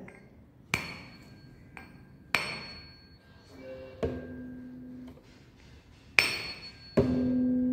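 A 256 Hz tuning fork struck three times, each strike a sharp knock with a high metallic ring. Between and after the strikes it gives a steady low hum, which becomes much louder about seven seconds in as it sounds on the sonometer while the wire is tested for resonance.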